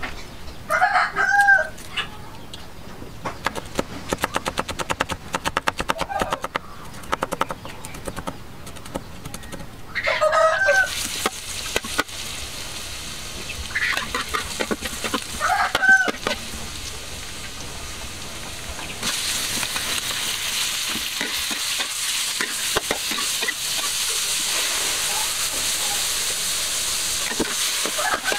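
A chicken calls several times, twice near the start and again around ten and sixteen seconds in, over a knife chopping garlic on a wooden board. From about ten seconds in, oil sizzles in a wok as garlic fries, and from about nineteen seconds the sizzle turns louder and steady as chunks of pork fry and are stirred with a metal spatula.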